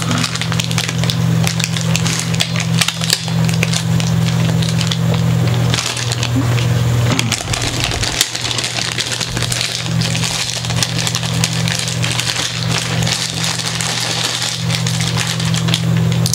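Crinkling and rustling of packaging, dense with small crackles and clicks, as small tuner hardware is handled, over a steady low hum.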